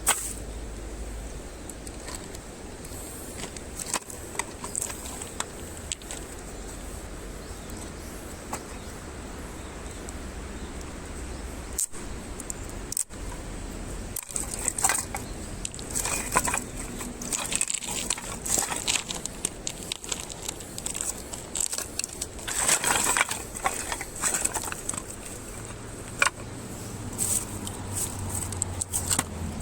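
Irregular rustling, snapping and crackling of dry kindling and twigs being handled and catching as a campfire is lit, sparse at first and busier about halfway through, with a burst of dense rustling a little past two-thirds of the way in.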